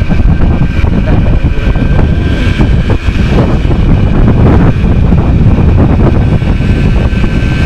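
Heavy wind rumble buffeting the microphone of a rider on a Yamaha DT100 two-stroke trail motorcycle, the bike's engine running beneath the wind noise. The rumble is steady and loud throughout.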